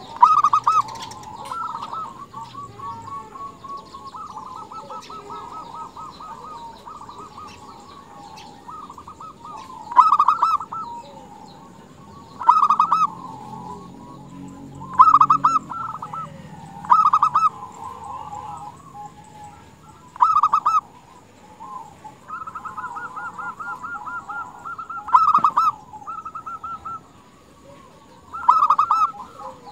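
Female zebra dove (perkutut) calling to attract a male: about eight loud coos spaced a few seconds apart, with softer, rapid stuttering coos in between.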